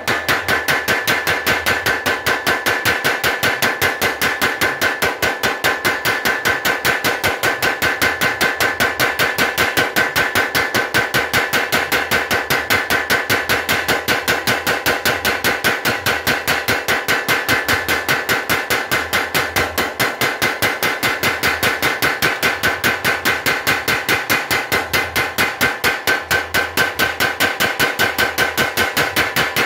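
A blacksmith's power hammer striking red-hot steel in the tongs on its anvil. It is a fast, steady run of ringing metal-on-metal blows, roughly five a second, as the blade is forged flat.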